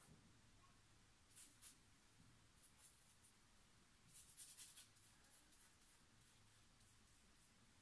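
Faint scratchy strokes of a paintbrush on canvas: two short strokes about a second and a half in, then a quick run of strokes around four to five seconds in, over a quiet room hum.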